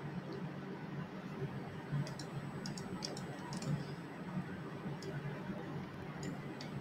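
A few soft, scattered computer mouse clicks over faint room hiss.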